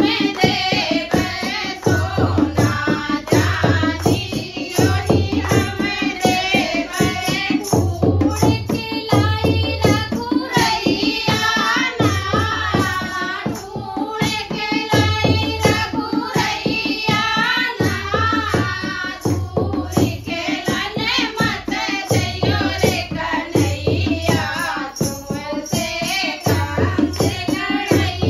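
A group of women singing a kajri folk song together, accompanied by a dholak drum beaten in a steady rhythm and hand clapping.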